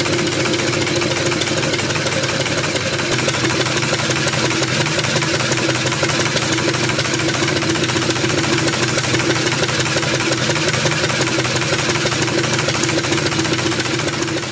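Automated gantry handling machine running: a steady mechanical hum with an even hiss over it.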